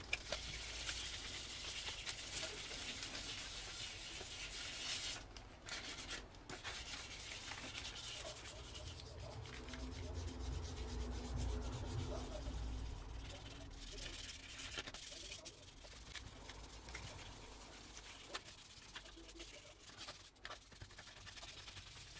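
Sanding sponge rubbed back and forth over a painted tube, a dry scratching sound. It is louder for the first few seconds, then softer.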